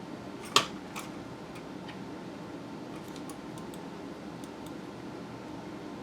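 Light clicks and ticks of small tools and plastic parts handled while a computer mouse is taken apart, with one sharper click about half a second in and a few faint ticks later, over a steady background hum.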